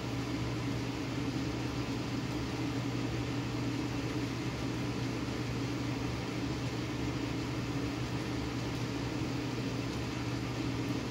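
Steady low machine hum with an even hiss of moving air, as from a fan-type appliance running without change.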